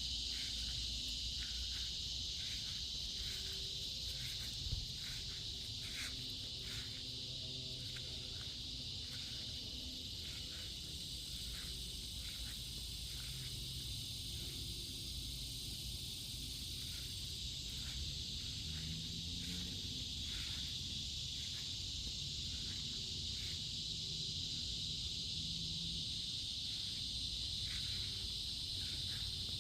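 Steady, high-pitched chorus of insects trilling without a break, with scattered short chirps or clicks and a low rumble underneath.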